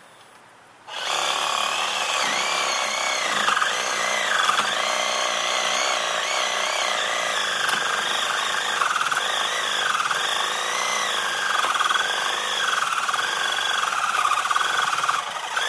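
Reciprocating saw (Sawzall) cutting through a small tree trunk. It starts about a second in and runs steadily, its motor whine wavering up and down in pitch as the blade bites, and stops near the end.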